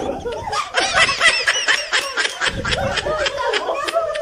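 Several adults laughing together in quick, rapid bursts, loudest from about a second in.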